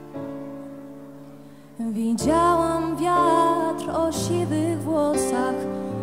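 Soft piano chords ring and fade, then about two seconds in a young woman's solo voice comes in, singing a slow ballad with vibrato in Polish over the piano accompaniment.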